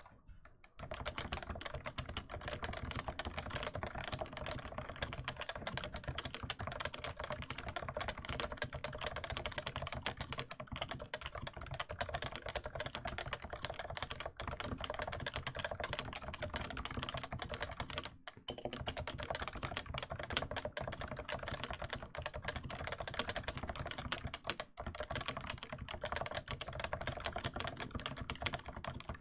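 Fast, continuous typing on a Topre Realforce 87U tenkeyless keyboard with 55 g Topre electrostatic capacitive rubber-dome switches. The stream of key strokes starts about a second in and breaks off for a moment twice in the second half.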